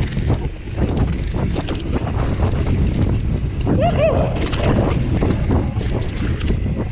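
Full-suspension mountain bike being ridden fast down a bike park trail: a steady rush of wind on the microphone over tyre roar and rattling from the bike. A short rising-and-falling squeal comes about four seconds in.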